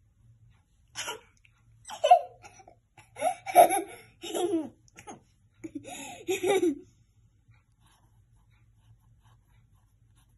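Giggling laughter, a person's laugh coming in several short fits over the first seven seconds or so.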